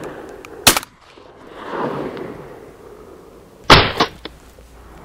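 Two shotgun shots about three seconds apart at ducks flying over, each a sharp crack followed by a long echo fading across the open water.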